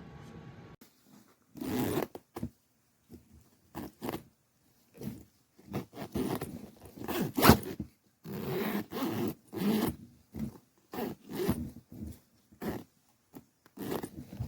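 A luggage zipper pulled in a series of short strokes, a dozen or so, with brief stops between them.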